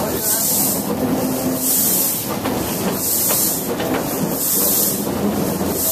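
LNER D49 class steam locomotive hauling its train, heard from a carriage: a high hiss that swells and fades roughly once a second over the steady rumble of the wheels on the rails.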